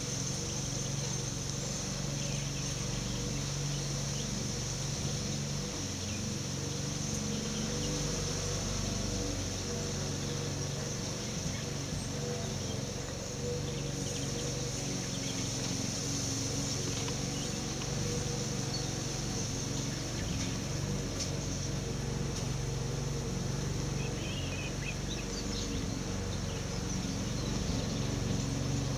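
Steady outdoor background noise: a low hum under a high hiss, with a few faint high chirps near the end.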